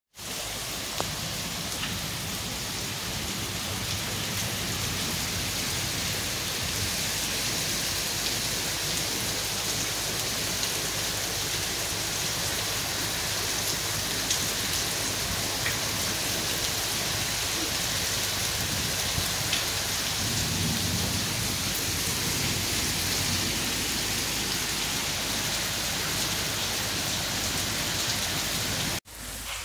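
Steady heavy rain falling on leaves and hard surfaces: a dense, even hiss with scattered close drops ticking through it.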